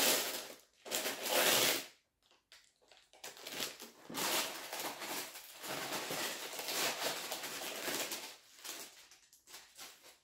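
Brown kraft-paper bag being crinkled and torn open by hand, rustling in uneven spurts with a short pause about two seconds in.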